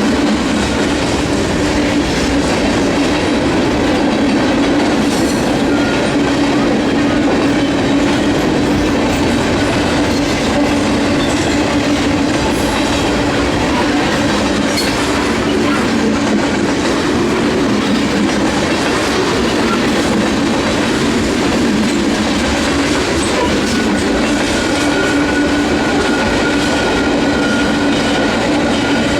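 CSX freight train's cars rolling past, a steady, loud rumble and clatter of steel wheels on rail. A thin, high wheel squeal comes in near the end.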